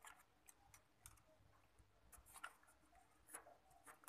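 Near silence with faint, scattered small clicks and taps as the motherboard and its newly fitted CPU cooler are handled and turned over.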